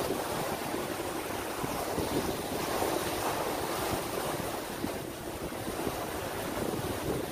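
Steady rush of wind on the microphone mixed with the wash of harbour water.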